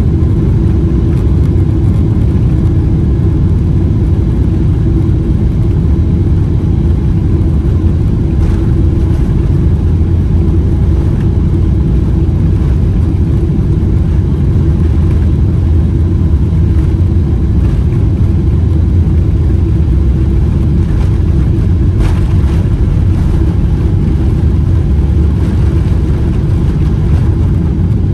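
Cabin noise of a Boeing 777-300ER under takeoff power: its GE90-115B turbofans make a loud, steady low rumble through the fuselage, with a few faint knocks here and there.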